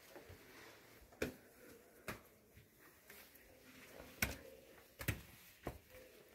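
Handling noise from a phone camera: about five short, sharp clicks and knocks at uneven intervals over faint room tone.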